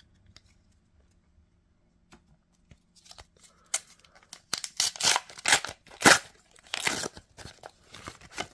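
A trading card pack's wrapper being torn open and crinkled by hand. A run of sharp tearing and crackling starts about three seconds in, loudest in the middle.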